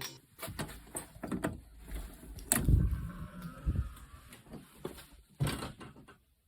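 Scattered handling noises: a string of short, irregular clicks and knocks, with a fuller low rustle or thud about two and a half seconds in.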